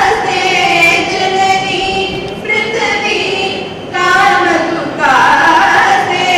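Voices singing a slow Indian devotional song, with long held notes that slide between pitches and short breaks between phrases.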